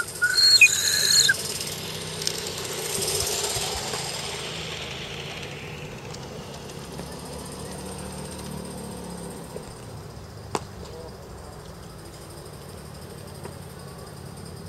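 Live-steam model locomotive giving a short whistle blast, then steam hissing and fading away over a few seconds. A single sharp click about ten and a half seconds in, over a steady low hum.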